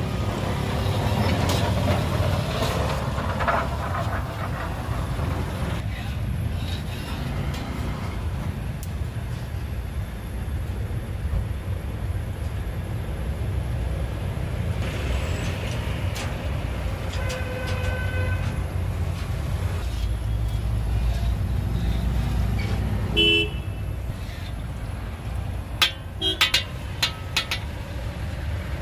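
A steady rumble of road traffic with car horns tooting twice, about two-thirds of the way through and again a few seconds later, over laddoo batter sizzling in a wok of hot oil. Near the end come a few sharp metal clinks of the steel skimmer against the wok.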